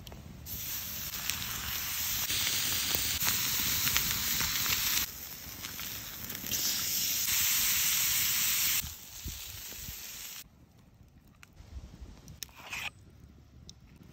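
Wagyu steaks searing on a hot flat stone over a wood fire: a loud, steady sizzle with small crackles, stopping abruptly about ten seconds in. After that there are only faint crackles and ticks.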